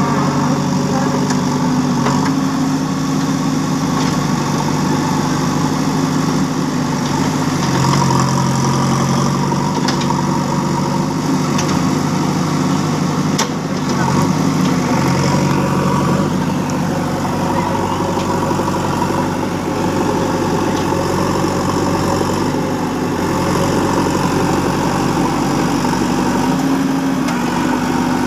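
JCB backhoe loader's diesel engine running steadily, its pitch stepping up and down several times as the load changes, with a couple of sharp knocks midway.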